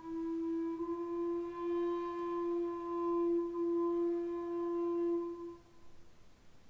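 Medieval tenor recorder holding one long, steady closing note, which stops about five and a half seconds in and dies away in the church's reverberation.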